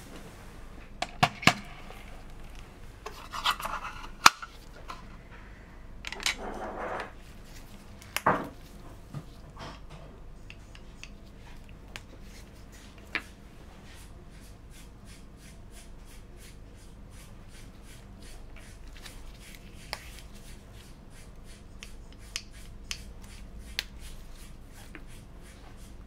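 Small plastic clicks, taps and short rubbing noises from handling lab ware on a bench: a micropipette, small plastic tubes and petri dishes. The louder knocks and scrapes come in the first ten seconds, then faint, uneven clicks follow.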